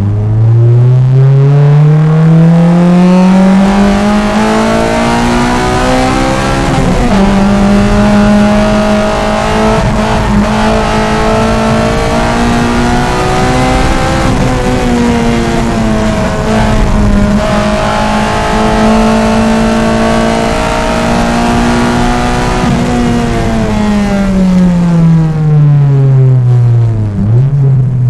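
Honda Civic Si's 2.0-litre K20 naturally aspirated four-cylinder VTEC engine under hard acceleration. The revs climb for about seven seconds, then hold high and nearly steady for about fifteen seconds, then fall away as the car slows, with a quick drop and jump in revs near the end.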